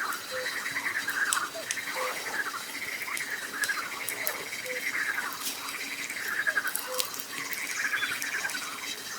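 Frogs croaking in a chorus, long rattling calls one after another, with the sharp crackles of a wood campfire.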